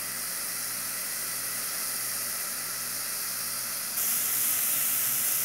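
Finely chopped onion sizzling as it fries in oil in a saucepan, a steady hiss that gets louder and brighter about four seconds in.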